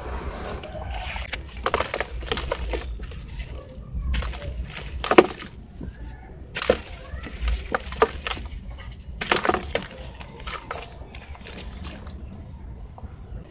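Sand-cement lumps being squeezed and crumbled by hand in a basin of water: gritty crunching and cracking, with water sloshing and bits splashing in. The cracks come irregularly, the loudest about five seconds in, over a low rumble.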